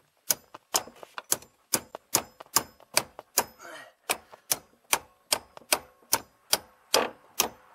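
Sharp, evenly spaced clicks, about two and a half a second, from hand work on a 1996 Mustang's steering shaft coupling under the dash.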